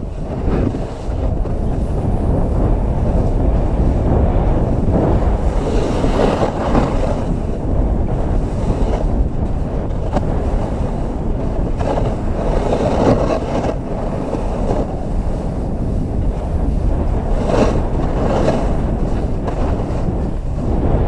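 Wind rushing over the microphone of a skier moving fast downhill, with the hiss and scrape of skis on snow swelling with each turn.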